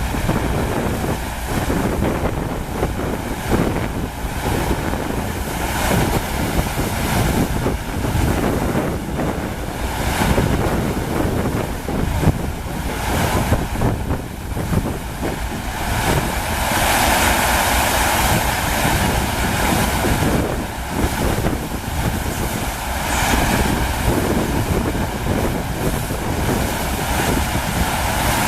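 Rushing water of a FlowRider wave simulator, with wind buffeting the microphone. The rush grows louder and brighter for a few seconds about halfway through.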